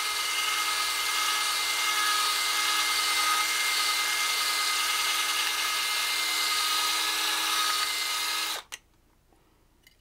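Cordless drill running at a steady speed with a small-diameter bit while drilling out an aluminium rivet. The soft rivet turns along with the bit, so the bit is not cutting. The motor stops abruptly about eight and a half seconds in.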